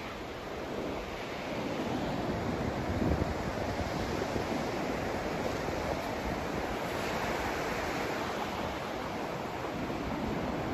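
Steady rushing noise of a sleep white-noise track, with its level swelling and easing slowly.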